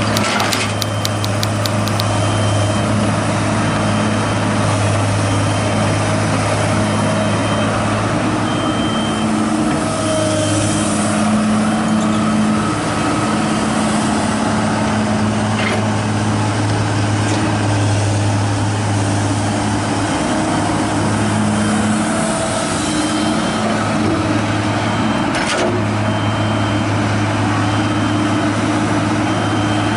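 Komatsu PC200 hydraulic excavator's diesel engine running steadily under working load, its hum rising and easing every few seconds as the hydraulics take up the digging. A faint high beep repeats about once a second, and there are a few sharp clacks.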